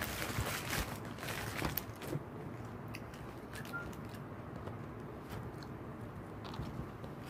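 Crispy fried chicken being bitten and chewed close to the microphone, the breaded skin crunching. The crunching is densest in the first two seconds, then thins to scattered small clicks.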